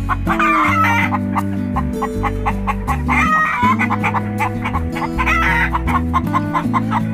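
Chicken calling in short warbling phrases, three of them a couple of seconds apart, over background music with a steady beat.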